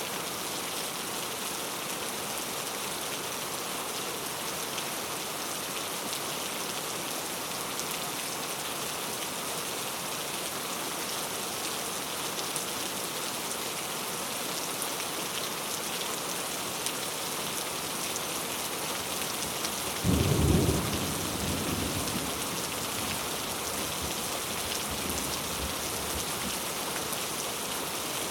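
Heavy rain falling steadily, with a sudden clap of thunder about twenty seconds in that rumbles away over the next several seconds.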